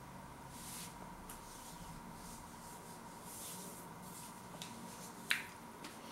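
Faint mouth sounds of a man chewing a mouthful of sausage roll, with soft swells of noise and a few small ticks, and one sharp click a little after five seconds in. A faint steady high tone hums underneath.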